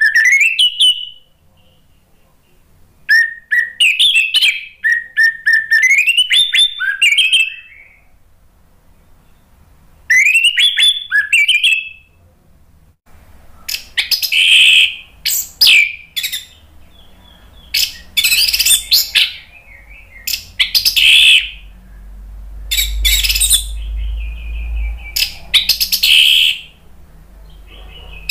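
Orange-headed thrush singing. At first it gives clear whistled phrases, runs of steady notes on one pitch that break into rising slurred notes, with pauses between. From about halfway on the phrases turn louder and harsher, each about a second long with short gaps, over a low hum.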